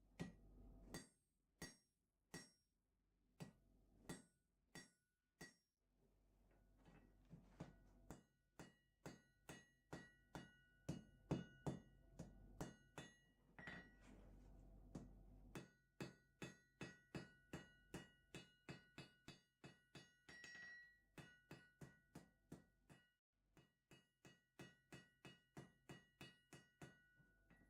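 Forging hammer striking a steel chisel blank on an anvil, each blow with a short bright ring. The blows come about every 0.7 s at first, then quicken to two or three a second, with a few brief pauses.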